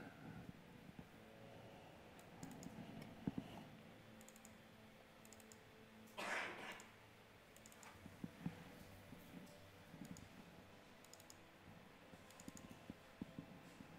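Near silence with faint, scattered clicks from the computer being operated. About six seconds in, a brief rush of noise lasts about half a second.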